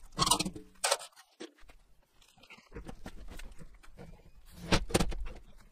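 Handling knocks and clunks as a full plastic water container is lifted into a steel rack on an aluminium toolbox, loudest near the start and again about five seconds in.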